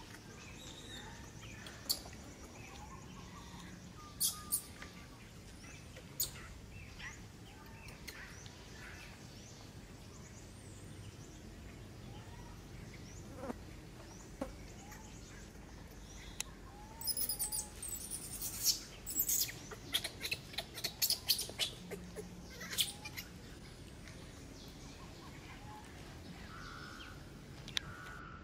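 Outdoor ambience with scattered short bird chirps, and a busy run of sharp, high chirping about 17 to 23 seconds in.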